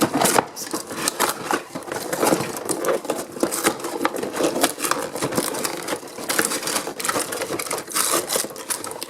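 Plastic and cardboard toy packaging being handled as a toy truck is worked out of its box: a dense, irregular run of clicks, rattles and crinkles.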